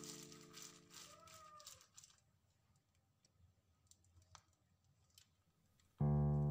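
Background piano music. A held chord fades out, with a faint short tone rising and falling as it dies away. Then come about four seconds of near silence with a few faint ticks, and a new piano chord strikes near the end.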